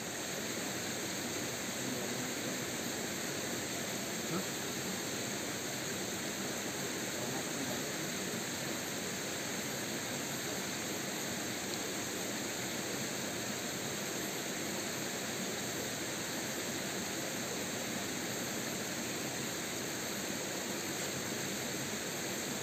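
Steady rush of water flowing over the rocks of a shallow stream.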